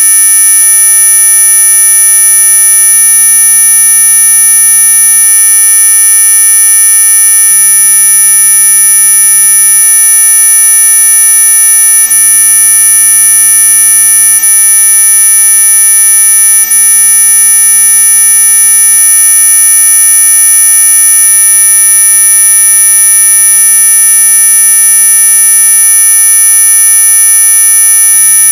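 Synthetic anti-mosquito repellent tone: loud, steady, shrill electronic pitches sounding together without change, strongest near the top of hearing.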